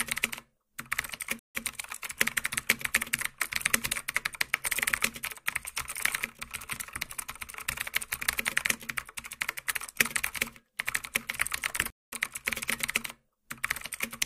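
Computer keyboard typing sound effect laid over animated typed-out text: rapid runs of key clicks broken by several short pauses.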